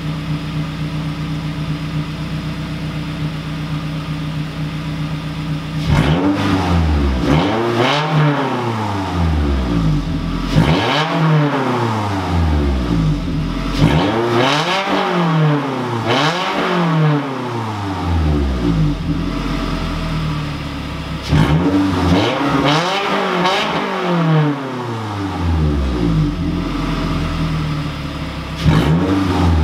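Scion tC's four-cylinder engine, with the axle-back exhaust removed so it exhausts through an open dump pipe, idling steadily while still warming up. From about six seconds in it is revved again and again, each rev climbing and falling back in pitch, about six times.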